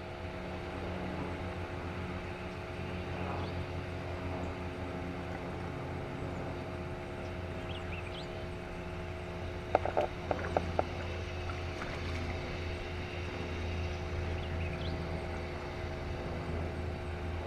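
Steady low hum of a motor running, with a cluster of sharp clicks about ten seconds in.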